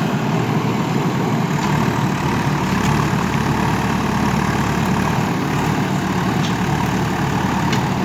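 Diesel engine of a JCB backhoe loader running steadily, with a few faint clicks.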